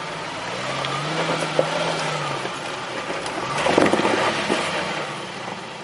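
Jeep engine revving as it works up a rock ledge, the pitch rising and easing back, then a louder burst of crunching and scraping about two thirds of the way through as the vehicle grinds over the rock.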